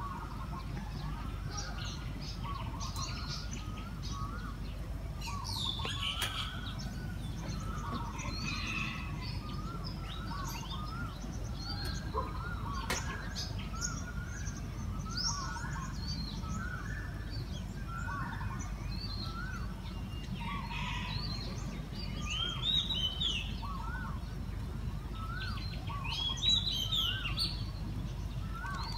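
Birds chirping and calling in a dawn chorus: many short, repeated rising-and-falling notes, with higher calls now and then, over a steady low rumble.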